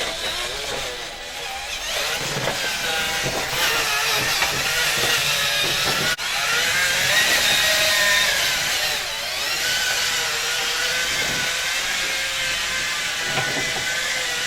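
Electric motors and hydraulic pump of radio-controlled construction models whining as they work, several tones gliding up and down in pitch as the machines move. The sound breaks off for an instant about six seconds in.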